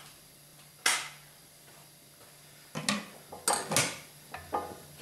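Sharp clicks and metal knocks from a hollow chisel morticer being handled: one loud click about a second in, then a cluster of about five clacks and knocks near the end, over a faint steady low hum.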